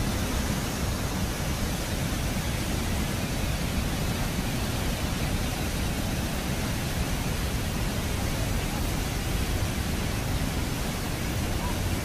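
Athirappilly waterfall in heavy monsoon flow: a dense, steady rush of water pouring over the falls and churning in the plunge pool, an even noise with no breaks.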